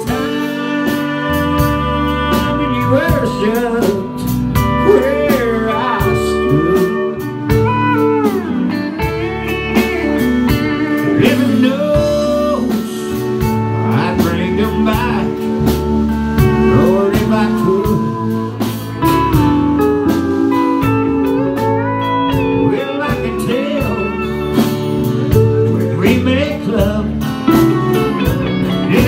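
Live country band playing an instrumental break: steel guitar gliding and bending between notes over electric and acoustic guitar, bass and a steady drum beat.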